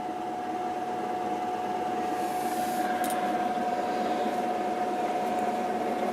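A steady mechanical hum with one constant mid-pitched tone running through it, slowly growing a little louder.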